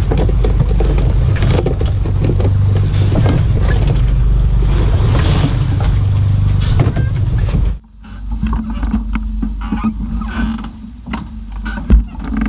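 A boat engine running steadily under way, its low rumble mixed with rushing wind and water. About eight seconds in it drops off abruptly to a quieter steady hum with scattered knocks.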